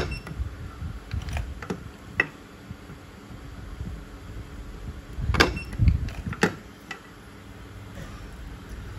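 Transformer spot welder firing through a handheld weld pen, welding 0.3 mm nickel-plated copper strip onto a cylindrical lithium cell. There are a few light clicks early on, then a cluster of sharp snaps about five and a half to six and a half seconds in, the middle one with a low thump.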